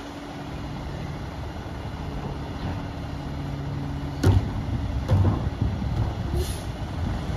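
Peterbilt New Way Sidewinder garbage truck's engine running steadily at low speed as the truck turns. Two loud clunks come about four and five seconds in, and a short hiss comes near the end.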